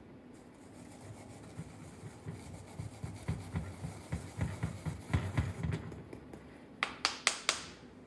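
Wire brush scrubbing moulding sand off a freshly sand-cast brass piece in quick back-and-forth strokes that grow louder, then four sharp knocks in quick succession near the end.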